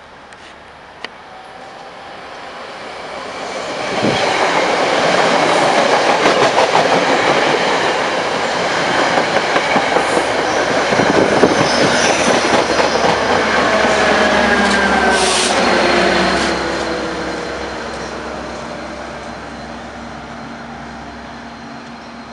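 Commuter train of Bombardier bi-level coaches passing at speed. The rumble builds, then the wheels clatter over the rail joints for about twelve seconds, with a few falling tones near the tail of the train, and the sound fades away.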